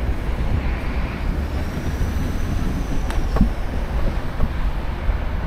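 Wind rumbling on the microphone, with road and tyre noise, while riding a Duotts C29 electric bike. A faint high whine swells and fades through the middle, and a couple of light clicks come about halfway.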